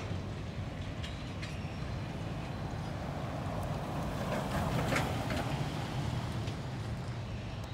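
Toyota pickup truck driving past, its tyre and engine noise swelling to a peak about halfway through and then fading, over a steady low rumble.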